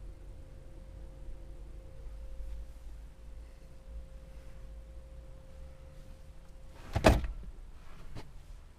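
A faint steady electronic tone that cuts off, followed about seven seconds in by a single loud clunk and a lighter click a second later.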